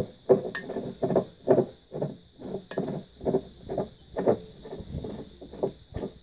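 M20 threaded subwoofer pole being turned by hand into the threaded socket on top of a subwoofer. It makes a steady run of metallic knocks, about two or three a second, each with a short ring.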